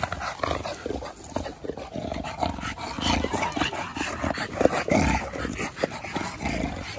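Bully-breed dog making vocal noises while playing, with scattered short knocks and scuffs.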